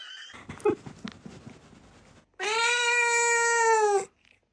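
A cat gives one long, steady meow, held for about a second and a half and dipping slightly at the end. Before it there are a couple of seconds of light taps and rustling.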